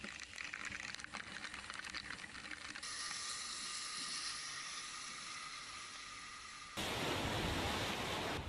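Hurricane storm ambience in three abrupt segments: a crackling patter of wind-driven rain, then a steady hiss of a vehicle on a rain-soaked street, then, about seven seconds in, louder wind and breaking surf.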